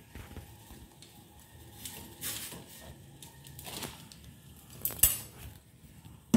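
Clinks and knocks of a stainless steel saucepan and its contents being handled on a gas hob, with short rustles of a plastic packet and one sharp knock about five seconds in.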